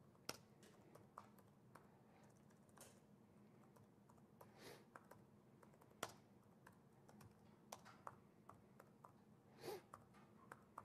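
Faint, irregular keystrokes on a computer keyboard as a terminal command is typed, single clicks a second or more apart over a quiet room hum.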